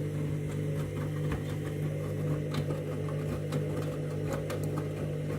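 Candy washing machine running its main wash: a steady motor hum with scattered light clicks as the drum turns the load.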